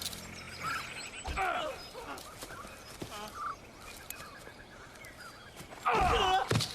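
Scattered short whistling animal calls that rise and fall in pitch, with a few clicks between them. Near the end comes a louder cluster of calls falling in pitch.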